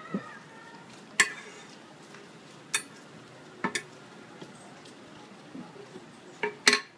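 Wooden rod and hand tools of a lac bangle maker knocking and clacking against the metal work plate as he handles them: about six sharp, irregular knocks, the loudest about a second in and a pair near the end.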